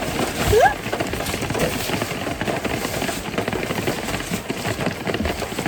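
Heavy rain falling, a dense steady crackle of drops striking the camp shelter. A short rising tone cuts through about half a second in.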